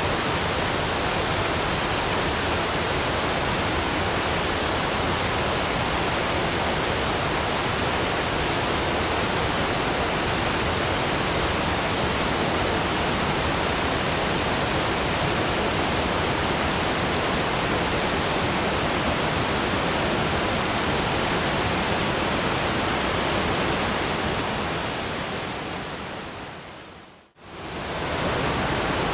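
Steady rushing noise of water pouring down small cascading waterfalls, even and unbroken. Near the end it fades away to near silence for a moment and swells back in, like a loop or edit point in the recording.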